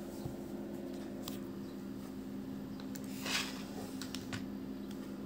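Steady low hum of a few held tones over faint hiss: background room tone of the recording. A soft, brief hiss rises and falls a little after three seconds in.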